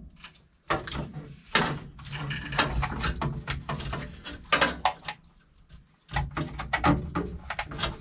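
Plastic clicks, knocks and rustling of wiring-harness connectors being handled and pushed into a Holley Terminator X EFI computer, with brief pauses about half a second in and near six seconds.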